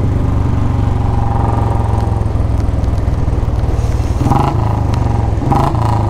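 Royal Enfield Bullet's single-cylinder engine running steadily, with a rapid, even exhaust thump. Two short higher tones sound about four and five and a half seconds in.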